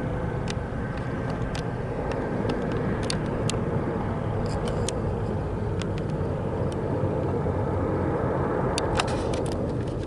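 A steady low engine rumble with scattered light clicks, and a faint whine that fades in the first second.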